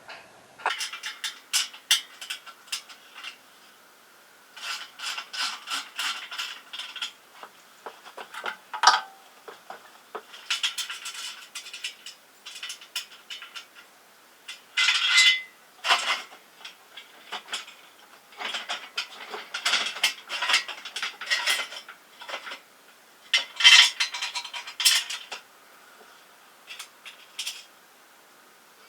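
Engine crane boom extension being moved to a new load position: metal clinking, rattling and scraping in irregular clusters as the pin and sliding boom are worked, loudest about halfway through and again near the end.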